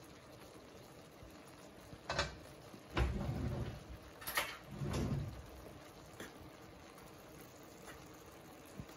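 A wooden spatula knocking and scraping in a frying pan of cooked onions and carrots, with a few sharp clicks and low thuds in the first half, then a faint steady hiss from the pan.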